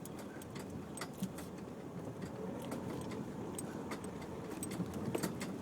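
Cabin of a Nissan X-Trail driving slowly over a rough, unsurfaced lane: a steady low engine and tyre rumble with irregular clicks and rattles from loose things in the car as it jolts.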